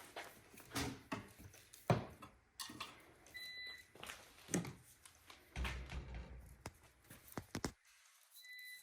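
Scattered clicks, knocks and handling noises of electrical wiring being flexed and pushed into an electrical box, with a few low thuds about six seconds in. A short, high electronic beep sounds twice, a few seconds apart.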